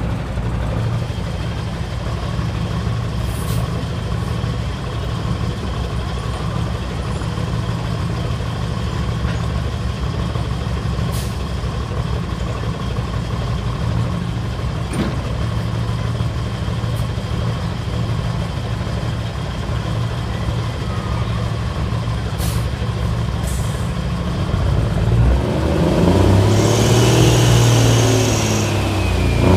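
A semi truck's diesel engine running steadily while hooked to a pulling sled. About twenty-five seconds in it gets louder and revs up, with a rising whine near the end as it builds power for the pull.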